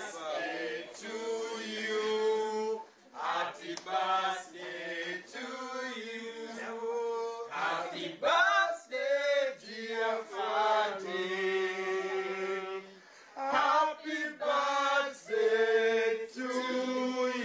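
A group of men and women singing a birthday song together unaccompanied, in held notes with short breaks between phrases.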